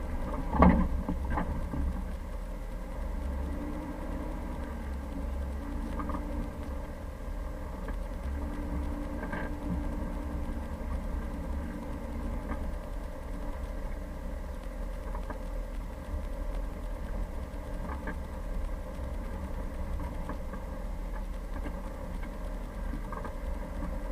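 Jeep Cherokee engine running steadily at low revs, with a sharp knock about a second in and a few light rattles after it.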